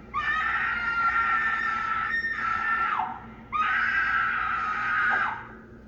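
Two long, high-pitched screams, each held for about two to three seconds and sliding down in pitch as it ends, with a short gap between them.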